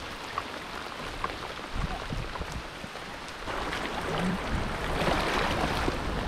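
Rain falling on a river's surface with the current running, an even hiss that grows louder about three and a half seconds in.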